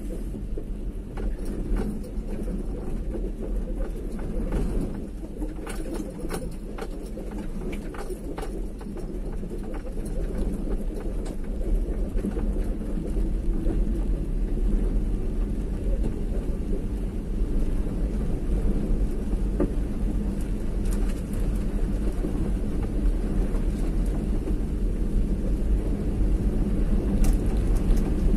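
A vehicle running along a road: a steady low rumble of engine and road noise, with a few light clicks between about five and nine seconds in and again near the end.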